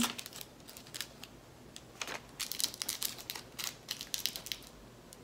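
Small plastic bags of diamond-painting drills crinkling and clicking as they are handled, in a quick irregular run of short crackles.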